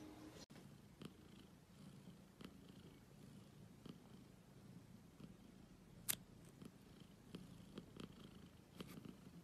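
A long-haired grey cat purring quietly and steadily while being stroked close to the microphone, with a few soft clicks and one sharp click about six seconds in.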